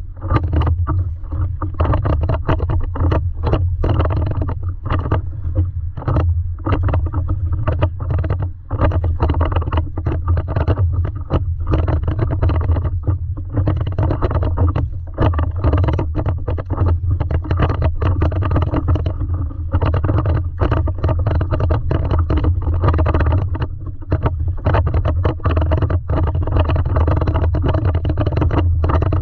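Lake water slapping and splashing against a stand-up paddleboard in rapid, irregular slaps over a steady low rumble.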